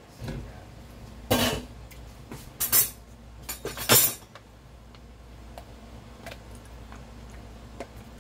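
Glass pot lid clattering and clinking against a metal cooking pot as it is handled and lifted off, with several sharp knocks in the first four seconds. After that a steady low hum remains, with a few faint ticks.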